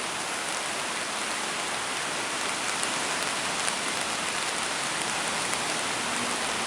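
Swollen River Ebbw in flood, its water rushing under the bridge in a steady, even rush with no let-up.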